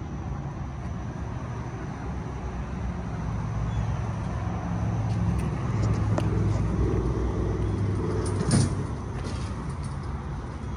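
A motor vehicle's engine running, swelling louder through the middle and easing off, with a single sharp click near the end.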